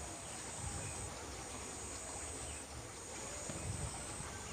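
Insects chirring steadily in the background: a faint, high-pitched, continuous drone.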